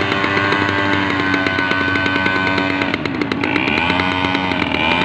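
Engine sound from a miniature squid-fishing boat model, running steadily. About three seconds in its pitch dips, then climbs back up near the end.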